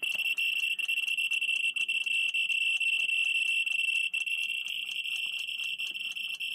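Geiger counter with a pancake probe clicking at several counts a second, irregularly spaced, over a steady high-pitched whine, as it picks up radiation from the radium luminous paint on a clock dial.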